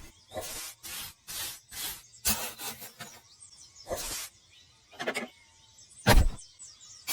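Repeated rubbing strokes, about two a second, then a few scattered strokes and one heavy thump about six seconds in.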